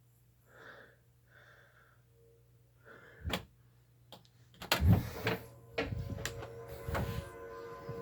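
A closet door being opened and things handled inside it: a loud thump a little under five seconds in, then a run of knocks, clicks and rustling. Before it come a few faint breaths and one click.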